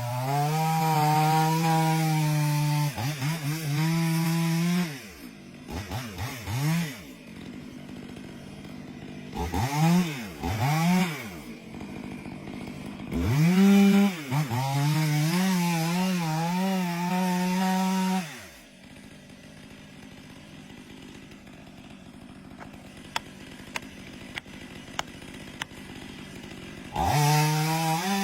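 Chainsaw engine running and cutting wood, its revs repeatedly dropping off and climbing back in quick throttle blips. For a long stretch after the middle it falls to a low, quieter hum with a few faint ticks, then opens up loud again near the end.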